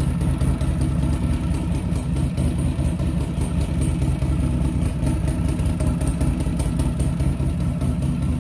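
2009 Harley-Davidson XR1200's air-cooled V-twin idling steadily through its heat-wrapped exhaust headers, on its first run after reassembly.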